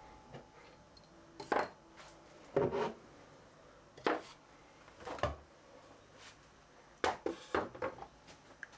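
Steel BT30 tool holders set down one by one into the holes of a wooden rack shelf: about six sharp clinks and knocks of metal on wood and metal, a second or so apart.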